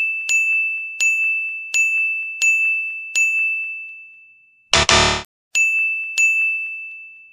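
Electronic ding sound effects: a run of identical high dings, about one every 0.7 seconds, each ringing out and fading, like an on-screen item popping up. About five seconds in comes a short harsh buzz, then two more dings.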